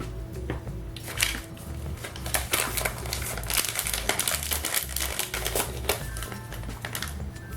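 Background music with a steady bass beat. Over it, from about a second in to near the end, a busy run of small clicks, taps and crinkling from handling the smartphone's parts and tools while its battery is being replaced.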